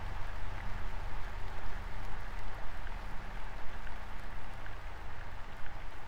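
Steady rain-like hiss with a few faint crackles and a low hum underneath.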